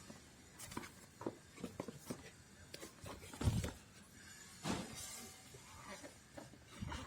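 Handling noises from unpacking: irregular light clicks and knocks, with two heavier thumps about halfway through.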